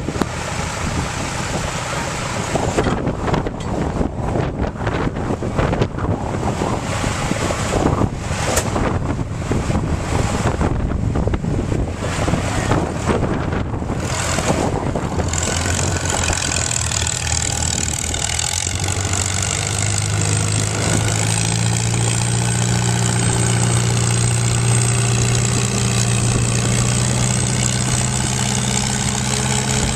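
Wind buffets the microphone over tractor engines in the background. From about halfway through, an antique Farmall tractor's four-cylinder engine runs close and steady under load on the pulling sled, its pitch climbing slightly and then holding.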